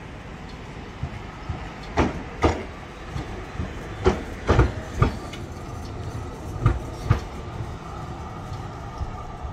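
Melbourne tram passing close by, its steel wheels clattering over the rail joints and crossings. The sharp clacks come mostly in pairs about half a second apart over a steady running rumble.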